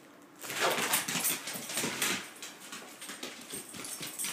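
A dog whimpering and scuffling about on a hard floor. The scuffling starts suddenly about half a second in and is loudest for the next two seconds.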